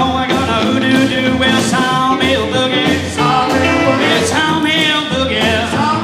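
Live rock-and-roll trio playing a boogie: electric guitar, upright bass and drum kit with a steady beat.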